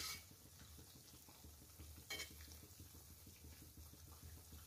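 Faint, steady sizzle of balushahi deep-frying in oil in an iron kadhai, with one brief clink of the perforated steel spoon against the pan about two seconds in.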